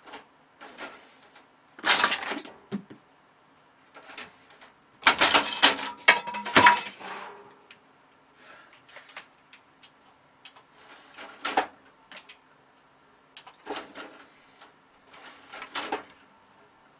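Computer DVD drive tray opening and closing: short mechanical clicks and whirs coming in separate bursts, the loudest clattering about five to seven seconds in.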